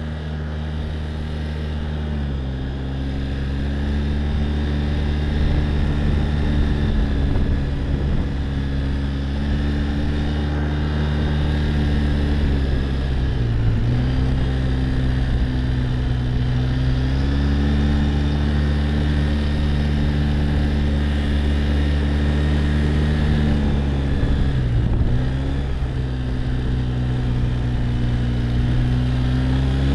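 Quad bike (ATV) engine running under way, a steady drone whose pitch steps up about two seconds in and then dips briefly twice, about halfway and near the end, as the throttle eases and picks up again.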